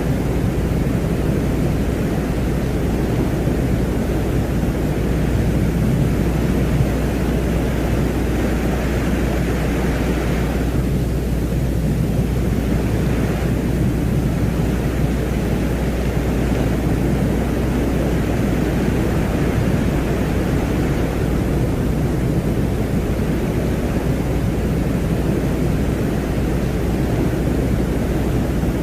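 Space ambience presented as the sound of Venus: a steady deep noise with a low hum underneath, the higher hiss thinning for a couple of seconds near the middle.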